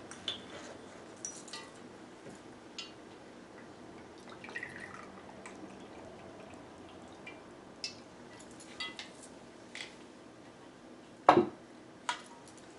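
A glass vodka bottle and a shot glass handled on a table: scattered light clinks and taps with faint liquid pouring, and one loud knock about eleven seconds in.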